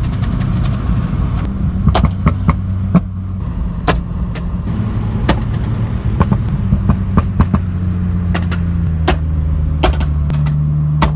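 Steady engine and road drone heard from inside a car travelling at motorway speed, its pitch stepping up near the end. About twenty sharp cracks and pops break through it irregularly, typical of the exhaust bangs of the tuned Abarth 500 running ahead.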